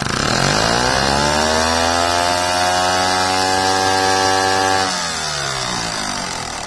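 3D-printed diaphragm air engine with polycarbonate piston, crank and conrod on a dyno power run. It revs up in a rising whine from about 900 rpm to roughly 5,700 rpm within a second or two, holds there steadily, then winds down in pitch as it slows, starting about five seconds in.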